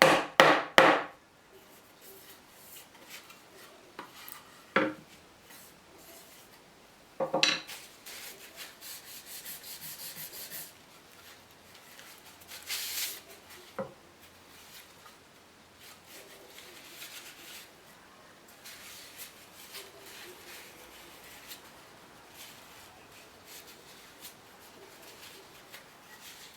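Wood being worked and handled by hand: a fast run of rubbing strokes at the start, then scattered light knocks and soft rubbing of wooden pieces.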